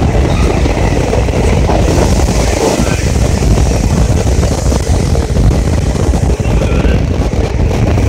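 Passenger train coaches running fast through a rock tunnel: a loud, steady rumble of wheels on the rails mixed with rushing air, heard from the coach's open side.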